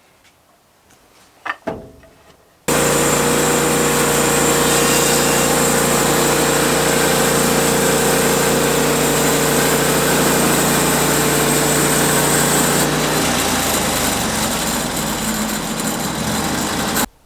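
Sawmill running, its engine and saw blade cutting through a cypress log. The sound comes in suddenly at full level about three seconds in, shifts in tone a few seconds before the end, then cuts off suddenly. Before it there are a few faint clicks.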